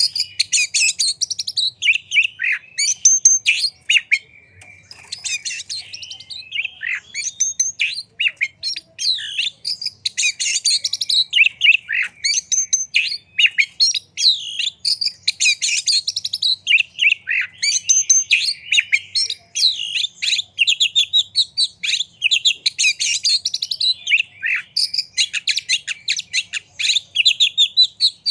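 Male oriental magpie-robin singing a fast, continuous, varied song of short notes and pitch glides, dipping briefly about four seconds in.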